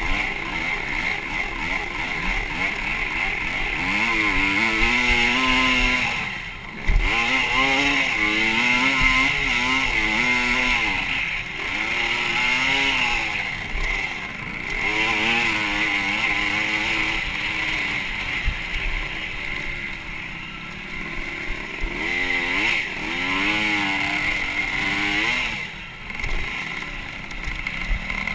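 Dirt bike engine ridden hard, its pitch repeatedly climbing and falling as the throttle is opened and rolled off through the gears. Near seven seconds in, the engine drops away for a moment, followed by a sharp knock.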